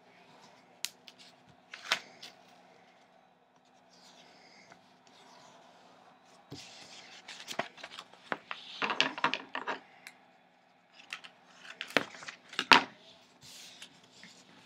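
Washi tape and paper planner pages being handled on a table: crackly rustling and sharp snaps as the tape is pulled from its roll, torn and pressed down, with the loudest snaps about two seconds in and again near the end.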